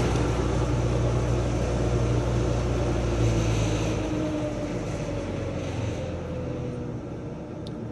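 AMK-75 belt knife sharpener running with its abrasive belt, then winding down: its steady hum drops away about four seconds in, and the pitch falls slowly as the motor coasts to a stop. A faint click comes near the end.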